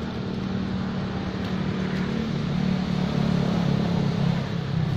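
A motor vehicle's engine running steadily, its hum slowly growing louder as it draws closer.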